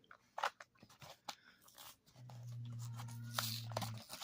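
Hot Wheels blister pack of plastic bubble and cardboard backing being opened: scattered crinkles, clicks and tearing. A low steady hum comes in about halfway through and runs almost to the end.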